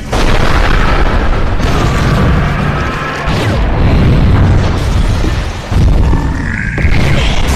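Animated battle sound effects: a run of loud explosions and booms that starts suddenly, with rising tones about two seconds in and again near the end.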